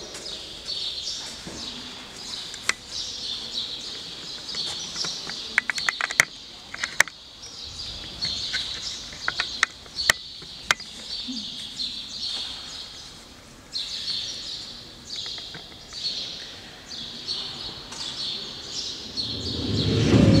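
Small birds chirping over and over in short high phrases, with a handful of sharp clicks in the middle; music with bell-like tones comes in near the end.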